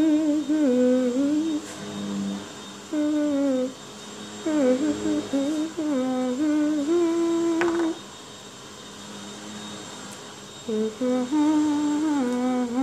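A girl humming a wordless tune in several short phrases with brief pauses between them, and a longer pause in the middle.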